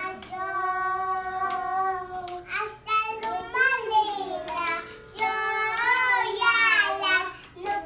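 Young children singing loudly: long held notes that later slide up and down in pitch, with a few faint clicks between phrases.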